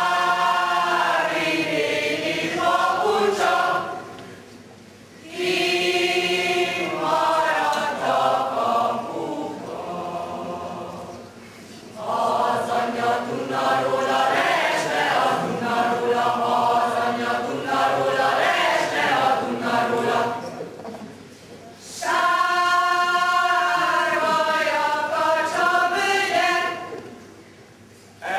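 Mixed choir singing, in phrases of several seconds broken by short pauses.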